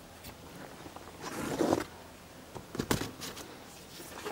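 A lead-filled brass slug with a nail being pushed by hand into a homemade airgun's metal barrel: a scraping rub about a second in, then a few sharp metal clicks.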